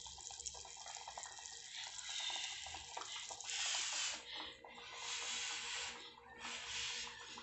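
Soup broth sloshing and dripping as a metal ladle scoops it from the pot, then several short breathy hisses as the hot soup in the ladle is blown on and sipped.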